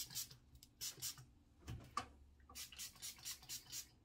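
Color Wow Dream Coat finger-pump spray bottle misting onto damp hair: short hissing sprays, a few spaced ones, then a quick run of about four a second in the second half.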